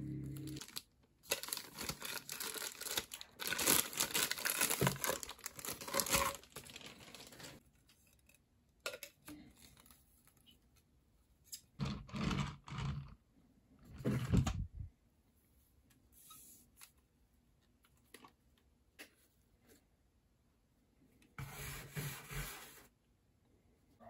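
Thin plastic packaging bags crinkling and tearing as parts are unwrapped, a dense rustle lasting several seconds, followed later by a few shorter bursts of plastic rustling and handling.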